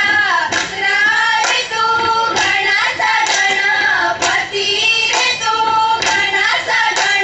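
Female voices singing a Goan fugdi folk song, with a regular beat about once a second.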